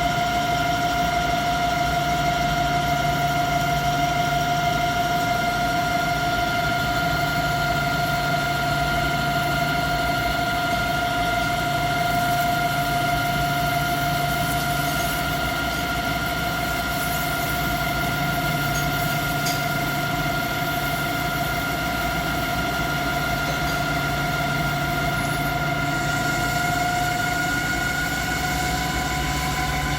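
CNC lathe running steadily with a high whine, its pitch creeping up slightly near the end, over a low mechanical hum.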